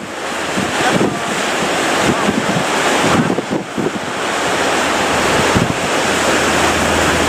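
Heavy surf breaking with strong wind buffeting the microphone in low rumbling gusts.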